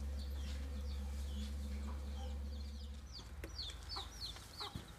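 Chickens calling in a run of short, high, falling peeps that come more often in the second half, over a steady low rumble that drops away about three seconds in.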